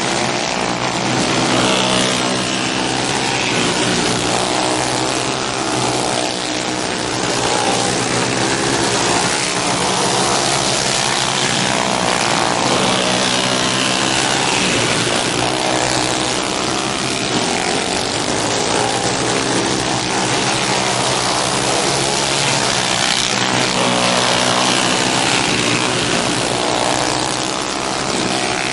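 Several alcohol-burning dirt-track racing karts running laps together, their small engines buzzing in overlapping notes that rise and fall in pitch as the karts throttle through the turns and pass by.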